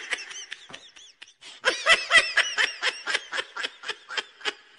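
Laughter: a long run of quick ha-ha pulses, about six a second, faint at first and louder from about a second and a half in, stopping shortly before the end.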